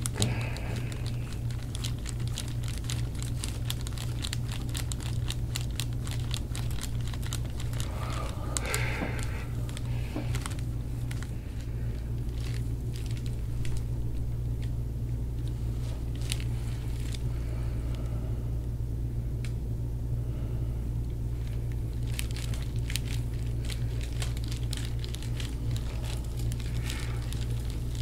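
Soft crinkling and scattered light clicks as a forearm and elbow press and slide over a bare back, with skin, clothing and the padded treatment table rubbing, over a steady low hum.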